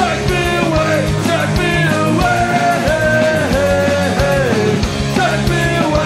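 Oi!/streetpunk band recording: guitars, bass and drums playing loud and steady, with a melodic lead line of held and bending notes over the band.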